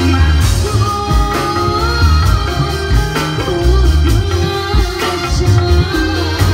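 Live dangdut pantura music: a woman singing a wavering, ornamented melody over amplified keyboard and drums with a strong steady beat.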